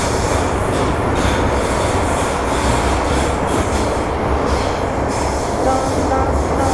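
MTR Island Line Metro-Cammell electric multiple unit (M-Train) running at speed, heard from inside the car: a steady rumble of wheels on track over a low hum, with a few short, faint high-pitched wheel squeals near the end.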